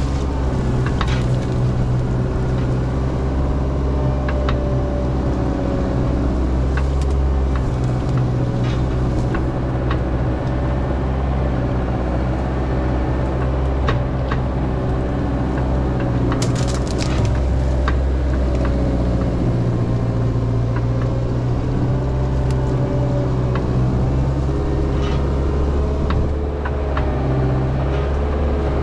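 Diesel engine of a dozer working steadily under load with a wavering hydraulic whine, while brush and branches being pushed snap and crack.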